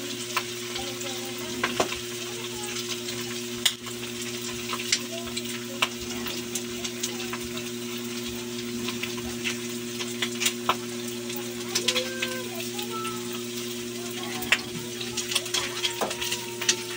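Pork belly slices deep-frying in hot oil in a wok, a steady sizzle with scattered sharp pops and crackles, not violent spattering. Metal tongs click against the wok's wire draining rack as the cooked pieces are lifted out of the oil.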